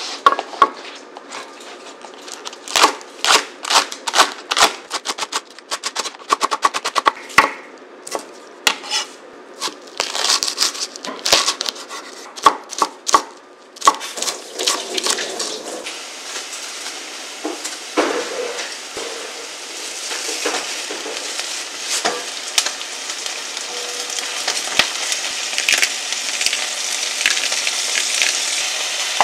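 A kitchen knife chops green onions and green chili on a wooden cutting board: sharp, irregular knocks, some in quick runs. About halfway through this gives way to sizzling as ground pork and green onions fry in a pan, turned with a wooden spatula, and the sizzle grows louder toward the end.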